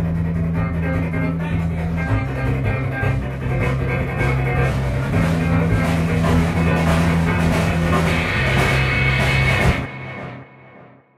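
Rock band playing with electric guitars, bass and drum kit, with long held bass notes that change every few seconds. The music stops abruptly about ten seconds in and rings out briefly into silence.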